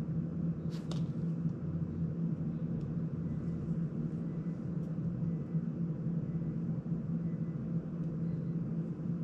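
Steady low motor hum of a bench-side circulator fan, with a couple of faint clicks from small drone parts being handled a little under a second in.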